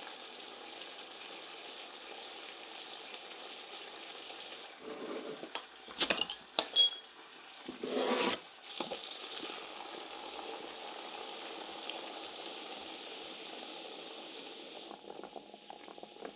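Pork neck slices sizzling steadily in honey-mustard sauce in a frying pan. About six seconds in come a few sharp metallic clinks with a brief ring, from a beer bottle being opened and its cap landing on the counter, then a short hiss. The upper part of the sizzle drops away near the end.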